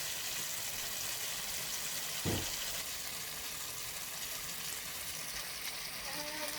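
Food sizzling steadily in a pot on the stove, with a single knock about two seconds in.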